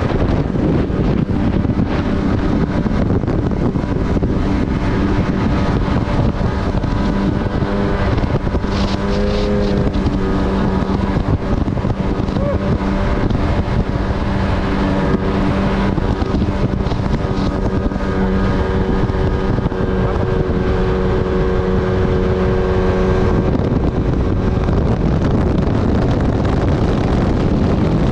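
Jet ski engine running steadily under way, its engine note wavering now and then, under heavy wind noise on the microphone.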